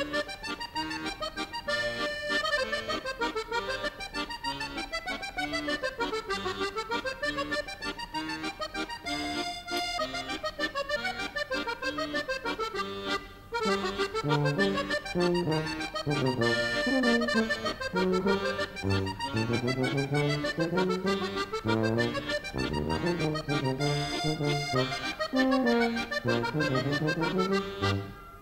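Background music: accordion playing a melody, with the notes changing quickly.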